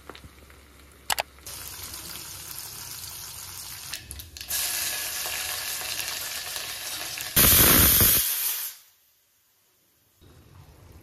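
Tempering spices sizzling in hot oil in a steel pot on a gas stove. The sizzle gets louder about halfway through, swells into a much louder hiss for just over a second, then cuts off.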